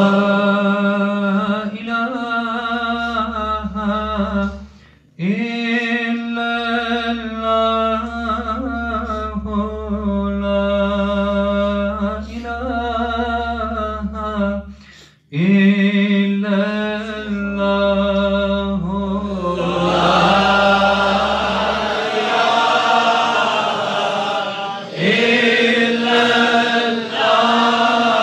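Amplified Sufi zikr: a man's voice chants God's name in long, drawn-out, held phrases, with breaths about five and fifteen seconds in. From about twenty seconds in, a congregation of men's voices chants along and the sound becomes fuller and less distinct.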